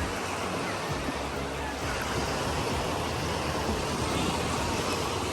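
Ocean surf washing steadily on the shore.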